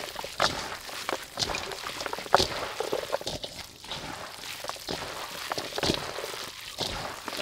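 Hands mixing vermicelli noodles with minced pork and chopped vegetables in a stainless steel bowl: irregular wet squishing and slapping, with sharp taps as handfuls drop back into the bowl.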